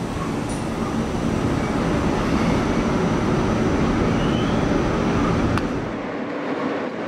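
New York City subway train running through the station: a steady rumbling rush that swells and then eases, with a couple of faint, brief wheel squeals and one sharp click near the end.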